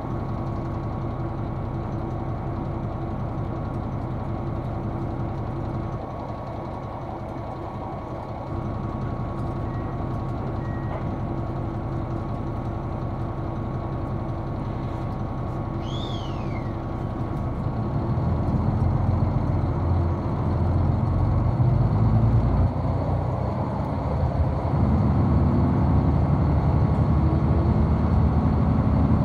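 Diesel engine of the Hokuto limited express diesel railcar running, heard from inside the passenger cabin together with the train's running noise. A steady low drone that grows louder about two-thirds of the way through, with a brief falling squeak about halfway.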